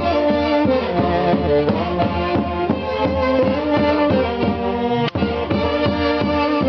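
An orchestra's band music, with horns playing the melody over a steady bass line, and one brief dropout about five seconds in.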